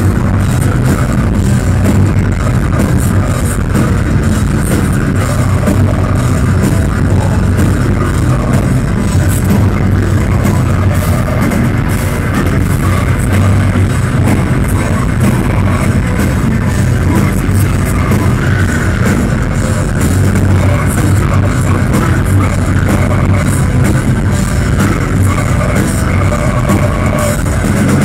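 Live metal band playing loud: distorted electric guitars, bass and a drum kit with frequent cymbal crashes, heard from within the crowd.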